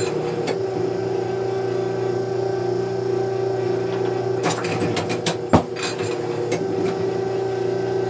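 Automatic clay-target trap machine with a steady electric hum. A cluster of metallic clicks and clatter comes in about four and a half seconds in, with one loud sharp crack about five and a half seconds in.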